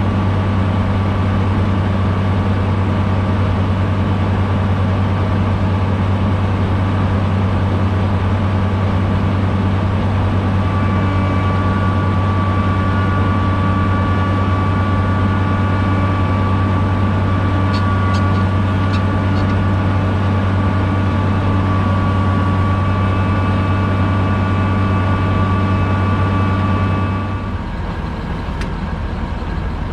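Large diesel engine of harvest machinery running steadily with a deep drone and a faint whine. Near the end the drone drops and eases off.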